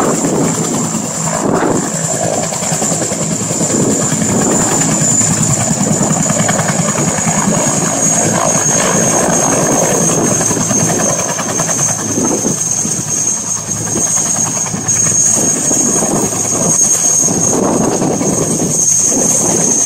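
Two Bell 214B single-turboshaft helicopters running close by with rotors turning, one of them descending to land. A steady high turbine whine sinks slightly in pitch over the constant rotor noise.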